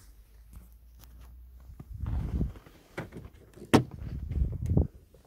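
Handling noise close to a parked snowmobile: muffled rustling thumps and a couple of sharp clicks, the loudest a little before 4 seconds in. The engine is not running.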